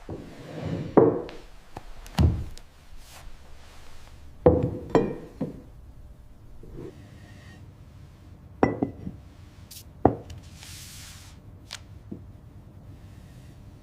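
A handful of separate knocks and clinks, some with a brief ring, as of tableware and glasses set down on a wooden table, spaced irregularly a second or more apart.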